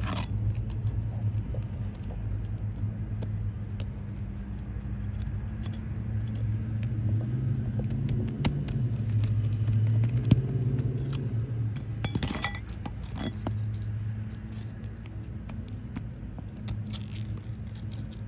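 A flat pry bar scraping and clicking as it is worked under lifted three-tab asphalt shingles, with a sharp click about ten seconds in and a burst of scraping a couple of seconds later. A steady low hum runs underneath.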